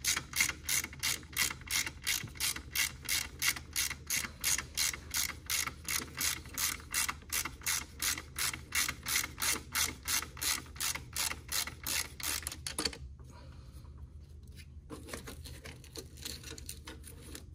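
Hand socket ratchet clicking steadily, about four clicks a second, as a bolt on the intake manifold is backed out; the clicking stops about 13 seconds in, leaving faint handling sounds.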